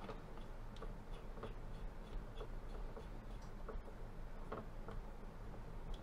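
Faint, light clicking, roughly one click every half second to second, as a refrigerant hose's brass fitting is handled and threaded onto the port of a digital manifold gauge.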